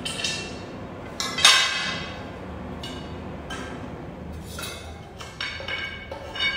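Metal tubes of a cloth stand knocking and clinking together as the stand is assembled, each knock ringing briefly like a struck pipe. There are about eight knocks at uneven intervals, the loudest about a second and a half in.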